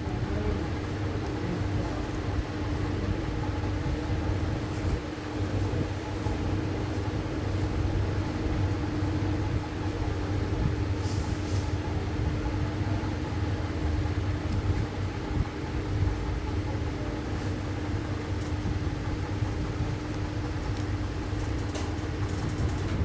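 A workshop machine running steadily, with a constant hum over a low rumble and a couple of faint clicks about eleven seconds in.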